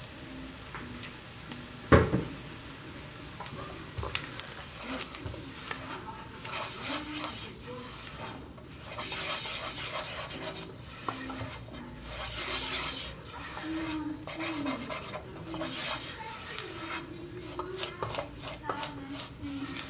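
A spoon stirring and scraping in a pan with light sizzling, as flour is cooked into melted butter and sautéed onion. It comes with many small knocks of the utensil and one loud clank against the pan about two seconds in.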